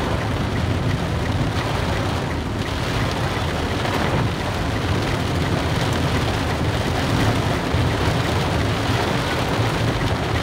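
Heavy rain on a moving car's roof and windshield, heard from inside the car, over the steady low rumble of the engine and tyres on the wet road.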